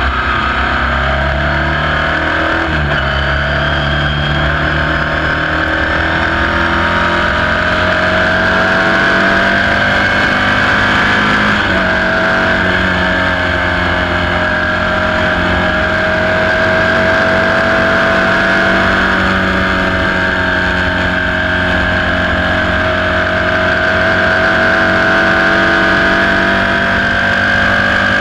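Sports 2000 race car's engine at racing revs, heard onboard: the pitch drops sharply at two quick upshifts in the first three seconds, then runs at high revs, rising and dipping slowly as the throttle is worked.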